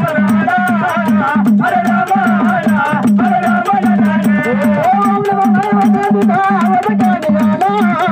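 Jagran-gondhal devotional music: a sambal drum pair beats a fast, steady rhythm with evenly spaced metallic ticks, while a wavering melody with pitch glides runs above it.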